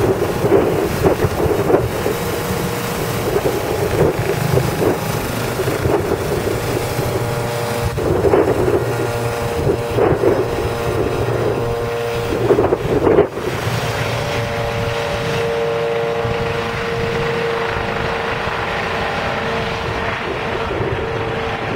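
Medical helicopter lifting off and climbing away, its engine and rotors running loud with a steady whine from the shrouded tail fan and rough bouts of rotor beat mixed with wind buffeting on the microphone. After about thirteen seconds the sound settles into a smoother, steadier drone as the helicopter flies off.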